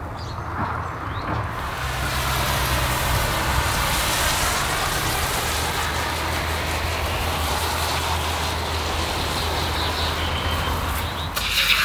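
Hand-pump pressure sprayer misting liquid onto a foamed engine bay: a steady spray hiss that sets in about a second and a half in. A low steady rumble runs underneath, and there is a short, louder hiss right at the end.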